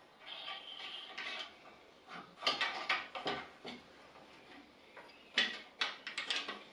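A wooden jig piece scraping as it slides along an aluminium track saw guide rail, then sharp knocks and clacks of wood against the rail in two clusters, about two and a half and five and a half seconds in.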